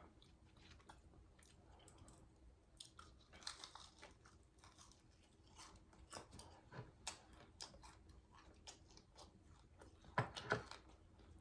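Faint mouth sounds of someone chewing fried chicken close to the microphone: scattered small clicks and bites, with a louder cluster about ten seconds in.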